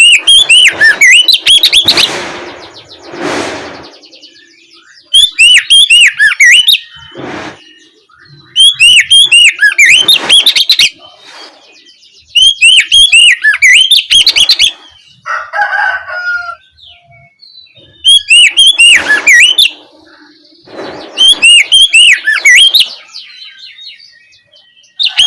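Oriental magpie-robin (kacer) singing loudly in six bursts of rapid, repeated sharp chirps, each burst about two seconds long with short pauses between. This is the full-throated 'ngeplong' song used to provoke other magpie-robins into answering.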